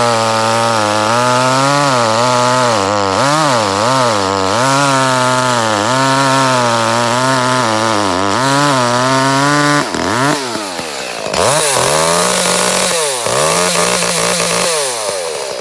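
Echo CS-310 two-stroke chainsaw held at high revs, its engine note dipping and stumbling several times. From about two-thirds of the way through, the revs surge and drop unevenly before the engine falls away near the end. This is the saw cutting out at the top end, a misfire the owner traced to a failing spark plug.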